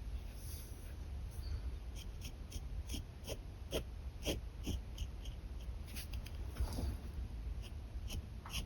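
Pen nib scratching on paper in quick short strokes while sketching, a few strokes in the middle giving a brief squeak that slides down in pitch.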